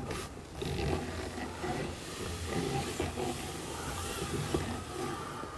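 Hand-crank hose reel being wound, an empty pressure washer hose sliding and rubbing onto the drum with a steady hiss and small clicks.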